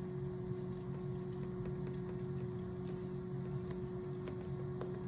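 Steady electrical hum of a low-temperature constant-temperature bath, with a run of faint clicks from its control-panel buttons being pressed to change the set temperature.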